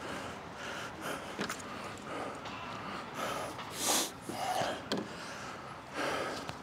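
A man's heavy breathing and sharp nose exhalations close to a clip-on microphone, the loudest breaths coming about four seconds in and again about six seconds in.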